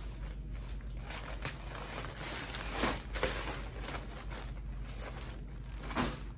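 Clothes and their packaging being handled: rustling and crinkling, with a few sharper crinkles about three seconds in and again near the end.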